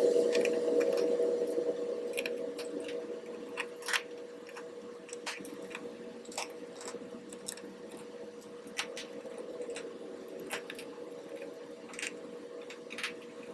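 Small screws being unscrewed from a phone's mid-frame: scattered light clicks and taps of the screwdriver and screws, over a steady hum.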